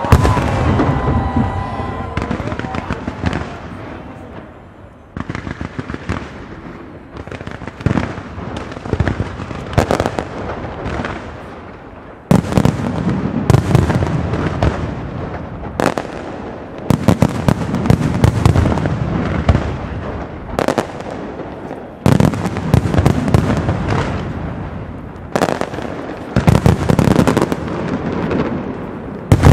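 Aerial fireworks display, a Valencian castillo: repeated sharp bangs of bursting shells over dense crackle, growing denser and more continuous from about halfway through.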